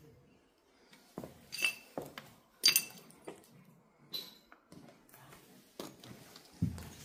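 Footsteps over rubble and broken ceramic tiles: irregular knocks and crunches, with shards clinking and ringing briefly, the loudest clink a little under three seconds in.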